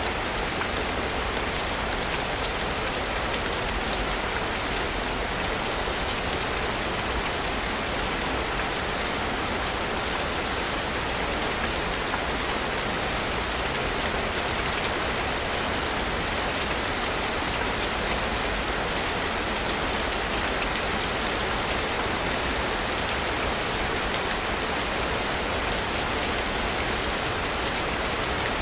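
Steady rain falling, an even hiss of dense drops that holds without change.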